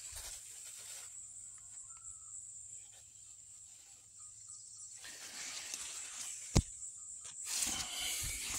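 Handling noise from a handheld phone pushed in among eggplant leaves: a sharp knock about six and a half seconds in, then leaves rustling against it near the end, over a steady high-pitched hum and a few faint short chirps.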